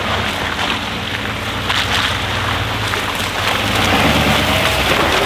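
Full-size Chevy Silverado 2500HD pickup rolling slowly toward the microphone through mud, its engine a low drone under the noise of the tyres and wind on the microphone. It grows louder as it draws near, about four seconds in.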